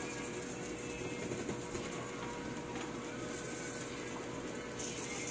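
Countertop turbo convection oven with rotisserie running: a steady hum of its fan and spit motor, with a faint steady whine under it.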